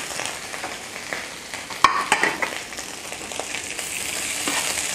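Snow peas and Chinese sausage sizzling in hot oil in a stainless frying pan as they are stir-fried with a metal spatula, with a sharp metal knock against the pan about two seconds in and a few lighter scrapes after it.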